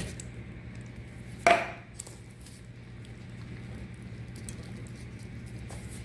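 A spoon knocking against a dish while vegetables are spooned out: a sharp click, then one louder clink with a short ring about one and a half seconds in, and a faint tap just after, over a steady low hum.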